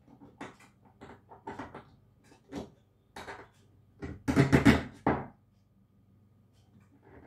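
Plastic clicks and clacks as a hand works the handle of a 3D-printed model windpump, in irregular strokes. A denser, louder rattle comes about four to five seconds in.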